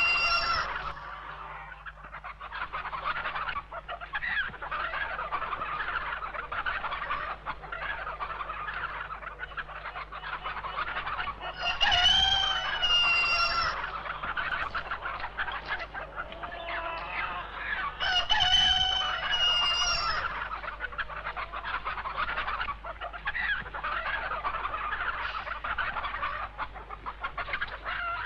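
A flock of chickens clucking continuously, with a rooster crowing twice, about twelve seconds in and again about six seconds later.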